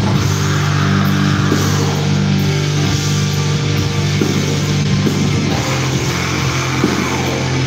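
Black metal band playing live: a dense wall of distorted guitar over long held low notes, heard from the audience.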